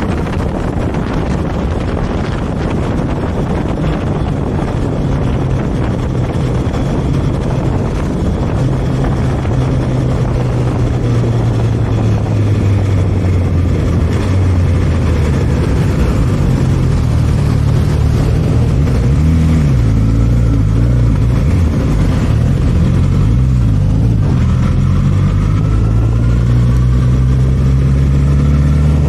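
Suzuki GSX-S1000's inline-four engine running under way over steady wind rush, its note slowly dropping in pitch through the first half, wavering in the middle, then rising again near the end as the throttle opens.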